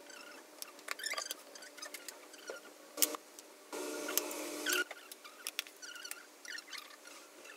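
Metal spoon clinking and scraping against jars and a plastic bowl as paste and syrup are spooned into a salad, in short irregular clicks and scrapes. A sharper click comes about three seconds in, followed by a rustle lasting about a second.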